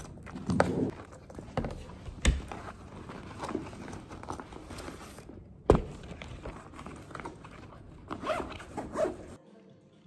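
Backpack zipper being pulled, with rustling and light knocks as things are taken out. About halfway through comes one sharp, louder thud, a stack of books set down on a wooden table. The sound drops away suddenly near the end.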